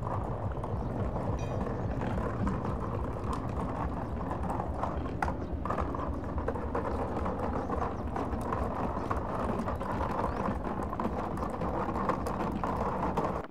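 Train rolling along the track: a steady rumble with a running clatter of clicks from the wheels over the rails.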